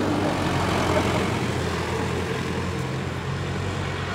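Road traffic: a box truck's engine running as it passes close by and slowly fades, with engine hum and tyre noise from other vehicles approaching on the road.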